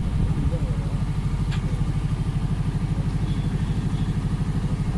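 Diesel engine running steadily at idle with an even low throb, from a backhoe loader working scrap with a generator-powered lifting magnet.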